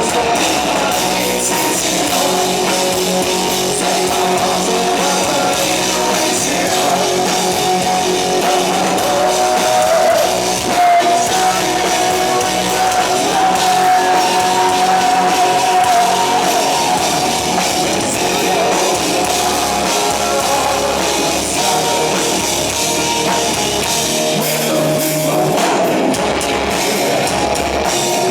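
Hard rock band playing: electric guitars and drum kit, with a sustained melody line held and gliding over the mix through the middle stretch.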